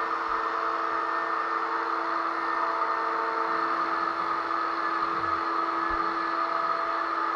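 Electric drywall sander running steadily: a constant motor whir with an even hiss over it.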